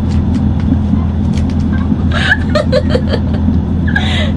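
Steady low rumble of a passenger train running, heard from inside the carriage, with brief snatches of a voice over it.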